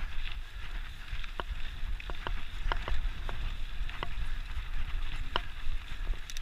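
Mountain bike riding over dry, rocky dirt singletrack: a steady low rumble of wind on the microphone with irregular clicks and rattles from the tyres and bike over stones and bumps.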